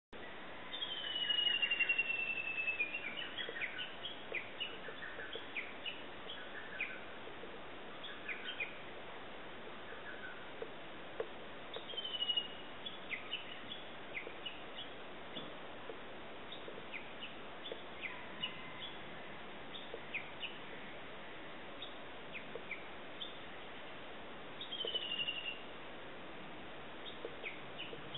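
Wild birds calling, with many short chirps scattered throughout and a longer falling whistled call three times: near the start, about twelve seconds in, and near the end. A steady hiss of background noise runs underneath.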